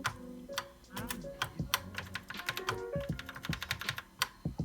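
Keystrokes on the CEC-I Apple II clone's keyboard, irregular clicks a few times a second, as the shift keys are pressed and tested; one of the shift keys is not registering.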